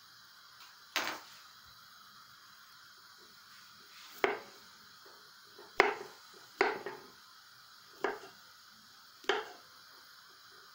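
Kitchen knife slicing button mushrooms on a wooden cutting board: six sharp knocks of the blade reaching the board, unevenly spaced a second or more apart.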